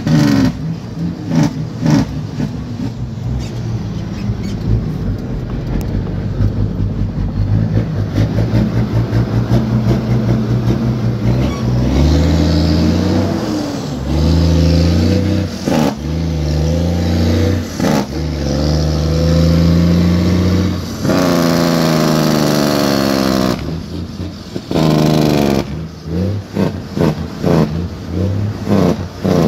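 Semi-truck diesel engine pulling through the gears: at first a low, rough running, then about four times its note rises under power and breaks off as the driver shifts up. After the last pull comes a couple of seconds of loud rushing noise.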